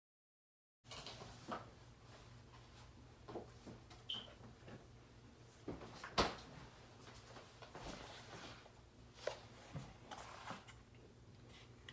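Faint scattered knocks and clicks of kitchen handling noise, the loudest about six seconds in, as an egg carton and kitchen things are picked up and moved, over a low steady hum.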